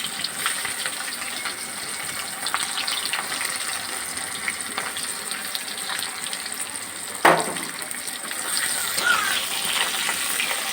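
Onions frying in hot oil in a pan: a steady sizzle with scattered crackles, and one sharp knock about seven seconds in.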